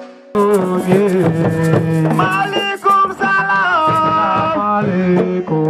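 Music: a melody over percussion, coming in sharply about a third of a second in after a brief drop.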